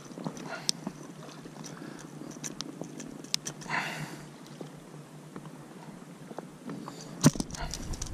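Fishing pliers clicking and scraping against a hook set firmly in a pike's mouth as it is worked free, with a short breathy rush near the middle and a sharp knock about seven seconds in.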